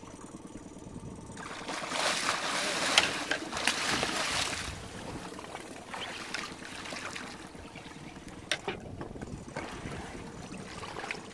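Water splashing as a hooked flatfish thrashes at the surface beside a boat's hull. The splashing is loudest for a few seconds starting about a second and a half in, then settles to a lighter slosh with an odd sharp knock.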